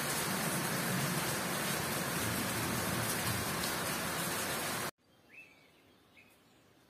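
Heavy rain pouring steadily onto tree leaves and the ground, cut off suddenly about five seconds in; after that it is quiet, with a bird chirping briefly twice.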